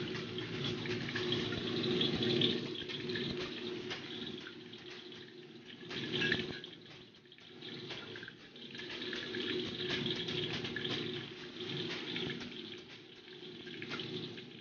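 Minced garlic sizzling and crackling in hot oil in a wok, swelling and easing, with a steady low hum underneath.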